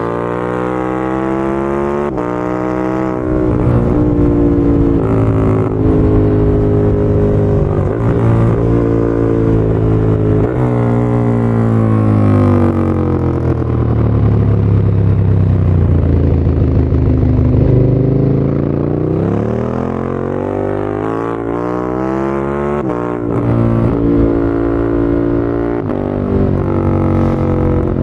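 KTM 1290 Super Duke R's V-twin engine through an Akrapovic titanium slip-on exhaust, pulling hard up through the gears with a string of quick clutchless upshifts, each a brief cut followed by a drop in pitch. About halfway through it winds down as the bike slows, then revs up again and clicks through several more quickshifted upshifts.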